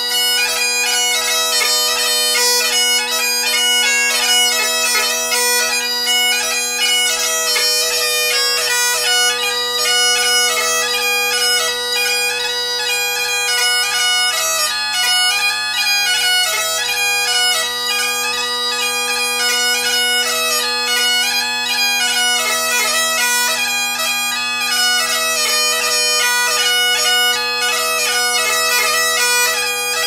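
Bagpipes playing a tune: the chanter melody runs over the steady, unbroken drone chord, with quick grace-note flicks between the notes.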